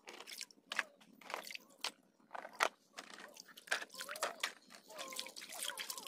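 Plastic toy dump trucks being handled in shallow water: a string of sharp plastic knocks and clacks as they are set down and bumped together, with splashes and drips of water.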